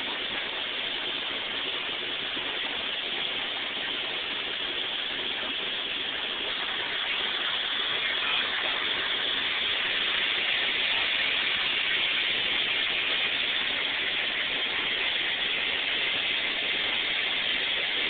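Steam crane hissing steadily, with no distinct beat, growing a little louder about seven seconds in.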